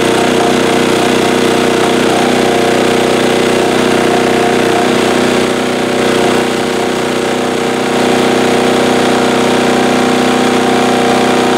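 Military 2 kW diesel generator set's engine running at a steady speed, its level dipping slightly for a couple of seconds around the middle.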